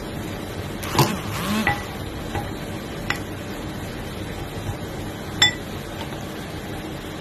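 Metal fork stirring dry flour in a bowl, clinking against the bowl a handful of times, with the sharpest clinks about a second in and again near the end.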